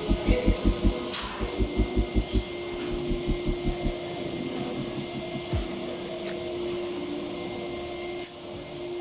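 Background music: a throbbing bass pulsing about five times a second in short runs over a held synth note; the bass drops out about four seconds in and the held note carries on.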